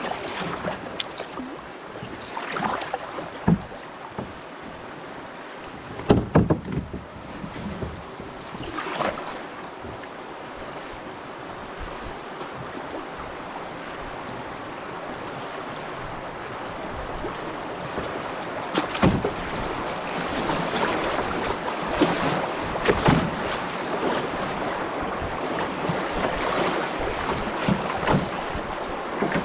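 Rushing water of river swifts heard from a canoe, growing louder as the boat runs into rougher water, with occasional sharp splashes.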